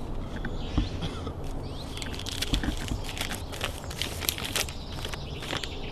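Paper rustling and crinkling as a folded sheet is handled and opened, a run of crisp crackles through the middle, over a low steady hum.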